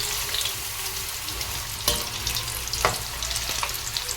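Flour-coated chicken lollipops sizzling and crackling as they fry in hot oil, with two sharp knocks about two and three seconds in.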